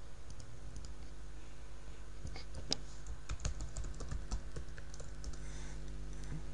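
Computer keyboard keys clicking in irregular keystrokes, busiest in the middle, over a steady low hum.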